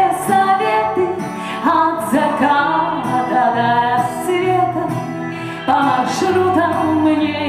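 A pop song from a backing track, with a woman singing the melody into a microphone.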